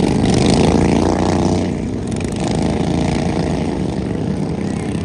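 Racing lawn mower engines running hard, loudest for about the first two seconds, then easing a little as they pull away.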